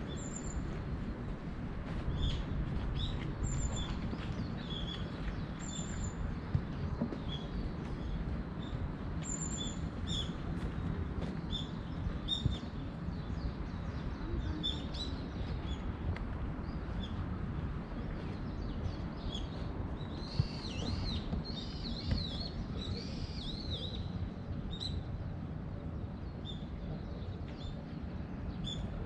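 Small birds chirping in short high notes, repeated every second or so, with a run of arching, warbling calls about two thirds of the way through, over a low steady background rumble.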